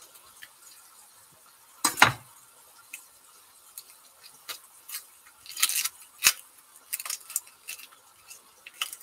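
Dry, papery onion skins crackling and crinkling as brown onions are peeled by hand over a wooden chopping board. There is one solid knock on the board about two seconds in, and scattered sharp clicks through the rest.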